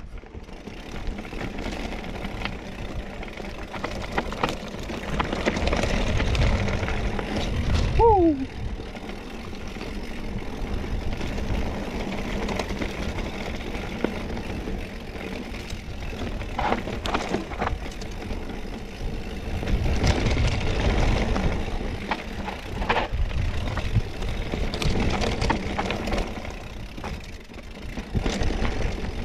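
Mountain bike rolling down a rough dirt and rock trail: a continuous rumble of tyres and wind on the microphone, with the bike knocking and rattling over bumps. A short falling squeal comes about eight seconds in.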